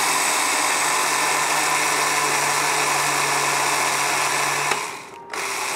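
Small electric mixer-grinder with a dry-grinding jar running steadily, whirring as it grinds fried rice grains into a coarse powder. About five seconds in the motor drops off, then runs again more quietly.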